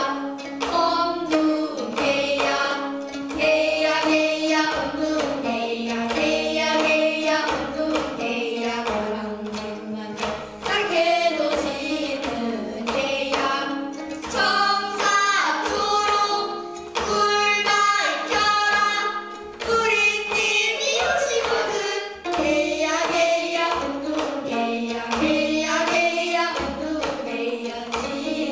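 Gayageum byeongchang: a group of young girls singing a Korean folk song together while plucking gayageum zithers.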